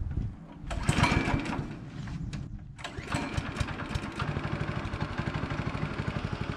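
The small engine of a Hankook GSM-900G walk-behind power tiller being started by hand: a loud burst of cranking and firing about a second in, a brief lull, then from about three seconds in the engine runs steadily at idle with an even firing beat.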